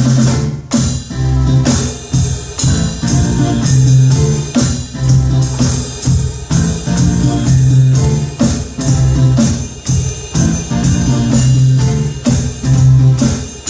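Drum kit played in a steady beat along with music that has guitar and keyboard.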